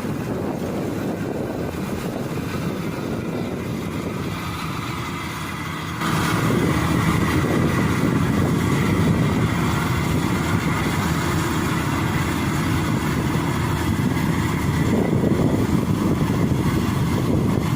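Rice combine harvester at work: a steady engine and machinery drone that becomes louder and brighter about six seconds in.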